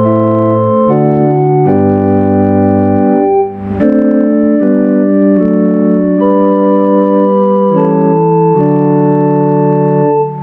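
Organ playing slow music of long held chords that change every second or two, with a short break about three and a half seconds in.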